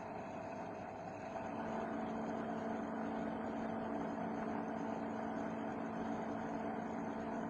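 Homemade CNC machine running, a steady machine hum with a constant mid-pitched tone; a second, lower tone comes in about a second and a half in and the sound grows slightly louder.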